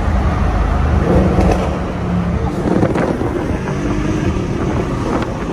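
Mercedes-AMG CLS 63 S's 5.5-litre twin-turbo V8 running steadily under way, heard from inside the cabin with road and tyre noise.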